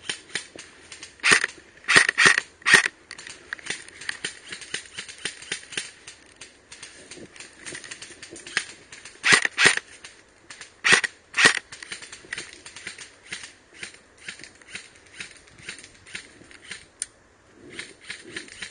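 Airsoft rifle firing single shots as sharp snaps: four close together in the first few seconds, then two pairs at about nine and eleven seconds. Many fainter shots from other airsoft guns crackle throughout.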